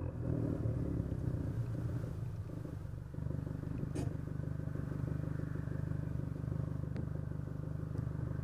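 Fiat 500 Turbo's exhaust, heard at the tailpipe, as the car rolls to a stop. From about three seconds in, its 1.4-litre turbocharged four-cylinder settles into a steady idle.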